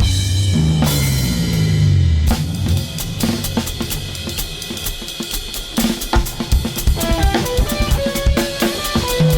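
Improvised music on a drum kit: a ringing cymbal wash over the first two seconds, then busy snare, bass drum and cymbal playing, with a held melodic note joining near the end.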